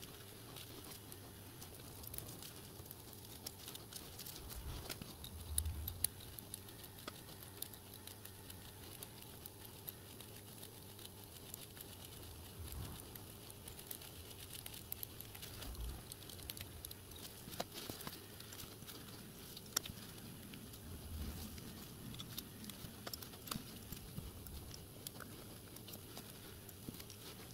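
Faint, rapid clicking and tapping of small brass and steel parts being handled and screwed together as a model locomotive axle pump and its eccentric strap are assembled, sped up eight times, with a few soft low thumps on the bench.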